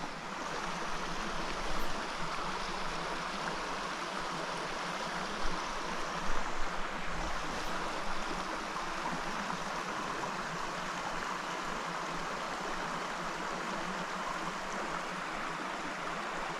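Small rocky mountain stream running over rocks: a steady rush of water, with a few brief soft low bumps around the middle.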